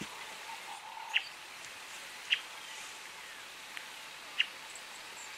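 Birds calling in the bush: a few short, sharp chirps spaced a second or two apart over a faint steady hiss.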